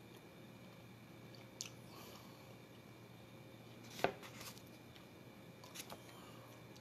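Quiet room hum with a few small clicks and rustles of a chicken sandwich being handled on a paper plate, the loudest a sharp tap about four seconds in as a hand reaches the plate and picks the sandwich up.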